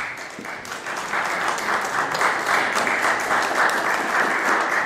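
Audience applauding: a dense round of many hands clapping, steady throughout.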